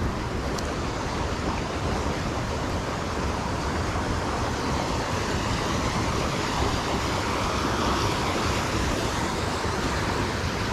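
River whitewater rushing over rocks, a steady, even roar of water.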